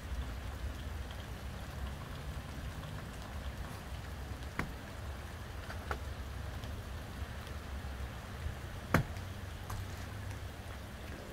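Light rain falling on snow-covered surfaces, an even patter with scattered drips and taps, the sharpest about nine seconds in, over a low steady rumble.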